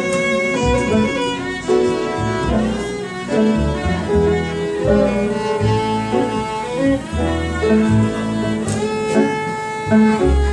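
Live jazz instrumental break: a violin playing the melody over an upright piano and a double bass, with no singing.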